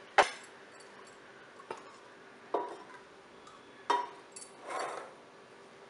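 Cookware being handled on a gas stove: a sharp click just after the start, then two metal knocks that ring briefly, about a second and a half apart, as pans are moved and a small non-stick kadai is set on the burner grate.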